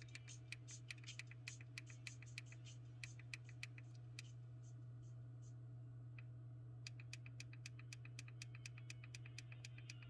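Faint, tinny music from the New Bee Bluetooth earpiece's small speaker, heard mostly as the track's regular ticking beat, about four ticks a second, over a steady low hum. The ticking drops out for a couple of seconds around the middle as the track changes, then starts again.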